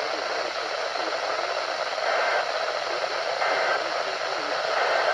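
Steady static hiss from a radio receiver, an even rushing noise that swells slightly about every second and a half.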